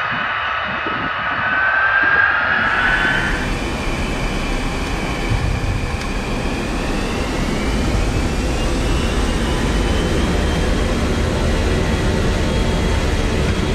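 A B-52's jet engines whining steadily with a high tone. About three seconds in it cuts to inside a jet cockpit: engine rumble and hiss, with a whine that rises in pitch from about six seconds in as the engines spool up.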